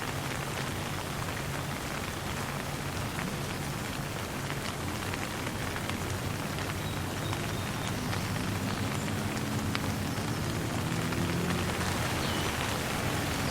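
Light rain falling steadily, with scattered drop hits, over a low, distant rumble of thunder that swells in the second half.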